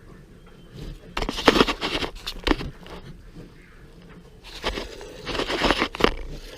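Two bursts of close rustling and crinkling, each about a second and a half long, one early and one near the end.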